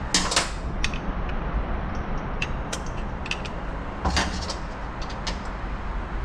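Metal pry tools clicking and scraping against the 2-4 clutch piston inside an aluminium 62TE transmission case as the piston is pried loose. The clicks and scrapes come irregularly, a cluster right at the start and another about four seconds in.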